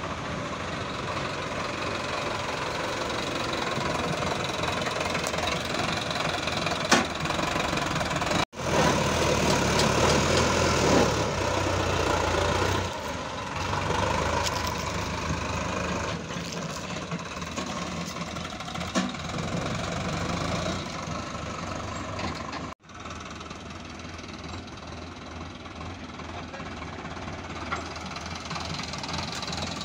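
Sonalika DI 750 III RX diesel tractor engine running while it pulls a trolley loaded with earth. The engine gets louder for a few seconds about a third of the way in, and the sound breaks off abruptly twice at the cuts.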